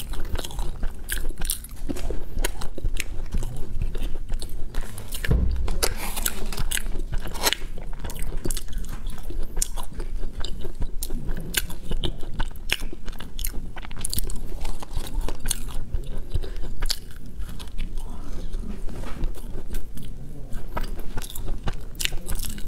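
Macarons being bitten and chewed close to a clip-on microphone: a steady run of many short crackly clicks and crunches from the shells, with moist chewing sounds in between.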